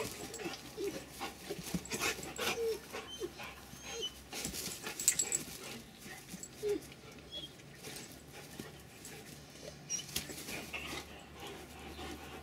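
Two Rottweilers play-fighting on a lawn: scuffling and pawing, with panting and a few brief whimpers, busiest in the first half.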